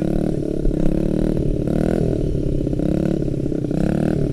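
Small single-cylinder four-stroke dirt bike engine, a Honda CRF50, running close by, its pitch rising and falling as the throttle is opened and eased off.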